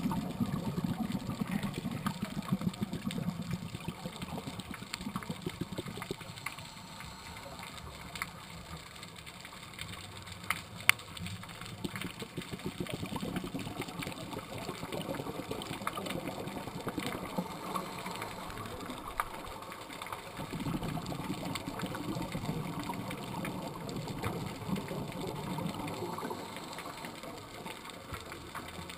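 Underwater sound of a scuba diver's breathing: exhaled bubbles from the regulator rumbling in long bursts, loudest near the start and again in the second half, over scattered sharp clicks.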